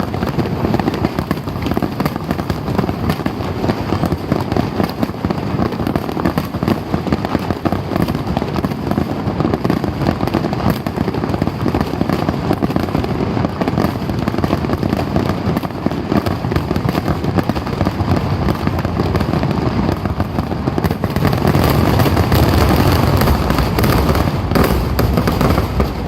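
Fireworks finale: a dense, unbroken barrage of aerial shells bursting and crackling, growing louder in the last few seconds.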